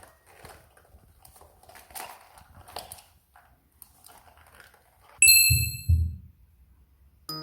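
Faint light tapping and rustling, then about five seconds in a sudden bright ring like a small bell, held for about a second and a half, with two heavy thuds under it.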